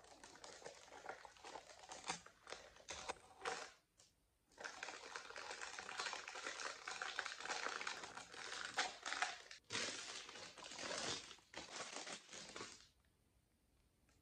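Thin clear plastic packaging crinkling as hands unwrap a plastic desk organizer from its bag, with a short break about four seconds in; it stops shortly before the end.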